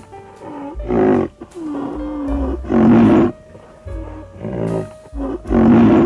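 Three loud, deep animal calls, each about half a second long and roughly two seconds apart, over background music.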